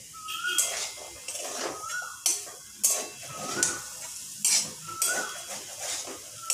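A flat metal spatula stirs boiled peanuts and potatoes in a metal kadai, scraping and knocking against the pan about once or twice a second over a low sizzle. A short rising squeak comes back every second or two.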